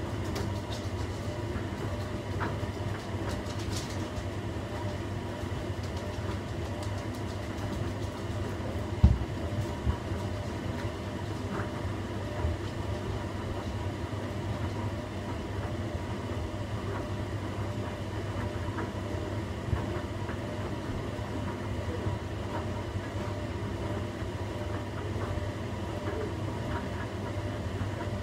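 Washing machine running with a bed inside the drum: a steady motor hum and drum rumble, with one sharp thump about nine seconds in and a few lighter knocks later.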